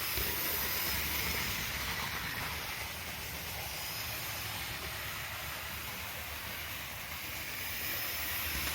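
Hornby OO-gauge Jinty model locomotive running on its track, a steady whirring hiss of the small electric motor and wheels.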